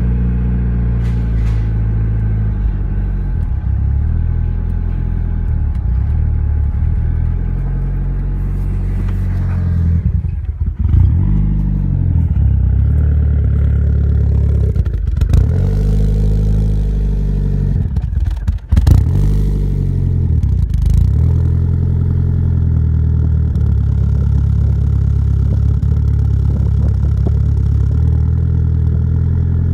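Mitsubishi 4G63 turbocharged 2.0 L inline-four in an Eclipse, fitted with BC 272 cams, idling roughly and unevenly. Around the middle the engine speed briefly drops and surges several times. The owner puts the rough idle down to a throttle stop that needs adjusting, possible boost leaks and a lack of tuning.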